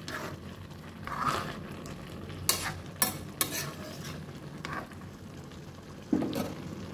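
A cooking spoon stirring chicken and ash gourd curry in a stainless steel kadai, scraping and knocking against the pan about eight times, with a heavier knock near the end. A steady low hiss of the curry cooking runs underneath.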